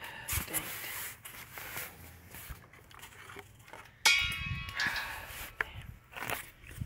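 Footsteps on a concrete floor and the rustle and knock of things being handled, with a sudden loud, ringing sound about four seconds in.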